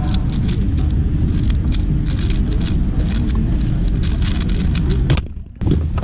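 Quick, irregular plastic clicking of a 3x3 speedcube's layers being turned, over a steady low rumble of hall noise. The sound drops out for about half a second near the end.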